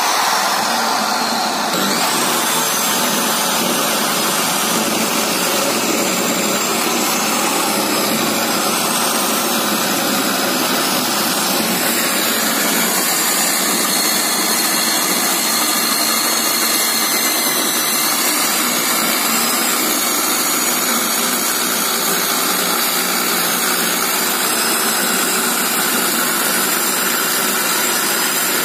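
Corded 900-watt circular saw with a 7-1/4 inch, 60-tooth Bosch blade, running at a steady loud pitch while it cuts lengthwise along a thick 2-inch wooden beam.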